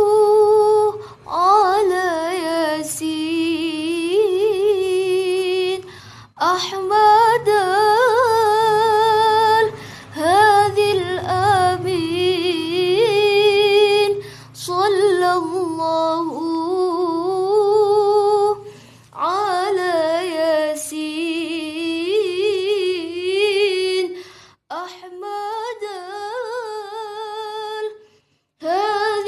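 A woman singing sholawat, an Islamic devotional song in Arabic, in long phrases ornamented with wavering runs and vibrato. She pauses briefly for breath between phrases, about every four to five seconds.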